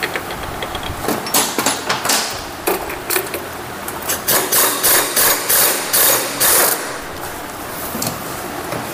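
A tool working loose the clutch centre bolt of a Hero Passion Pro BS6 engine: a run of sharp metallic knocks, about three a second, starting about a second in and stopping shortly before the end.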